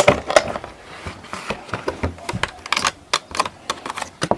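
Many quick, irregular clicks and taps, several a second, like small objects being handled.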